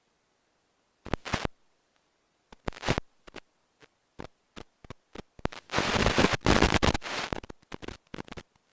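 Irregular bursts of crackling static, sharp crackles at first and then a dense burst of hiss for about two seconds near the middle, with dead silence between: typical of an analog 5.8 GHz FPV video link breaking up.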